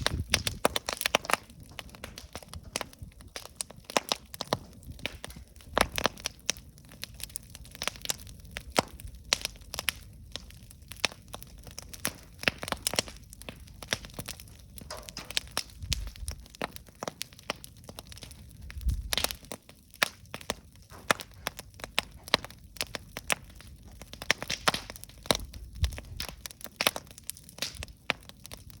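Wood campfire burning, with frequent irregular crackles and sharp pops over a low hiss and rumble of the flames.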